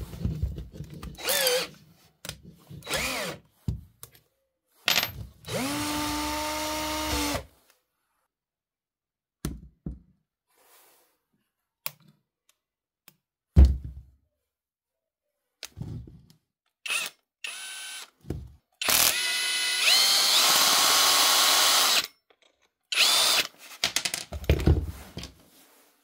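Cordless drill motor run in several short bursts, each whining up to speed and then holding steady. The two longest last about two and three seconds, and the later one steps up in pitch partway through. Between runs come scattered clicks and knocks.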